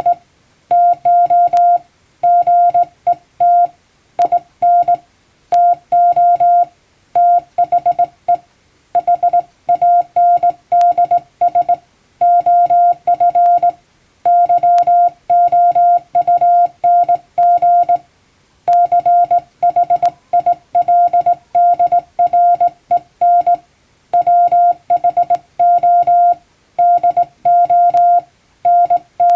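Hand-keyed International Morse code: a single steady beep tone switched on and off in dots and dashes, sending plain-language English text at receiving-practice speed, with short pauses between words.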